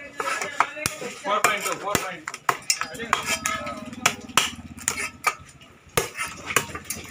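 Knife blade cutting and scraping crab shells against a wooden chopping block: a quick, irregular run of sharp clicks and knocks.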